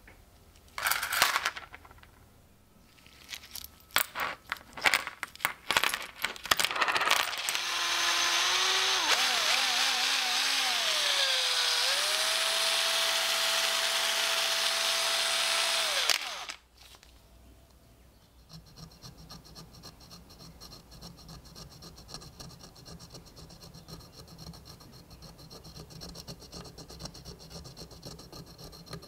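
Scattered clicks and knocks as coins and a small vise are set down on a cutting mat. Then a cordless rotary tool with a wire brush wheel runs for about eight seconds, its whine wavering and then holding steady before cutting off. After that comes faint steady scratching of a wooden toothpick working dirt off a coin held in the vise.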